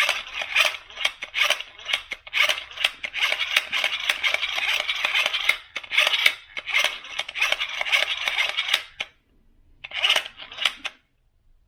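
Rapid clicking and rattling of small hard parts being handled. It stops about nine seconds in and comes back as one short burst a second later.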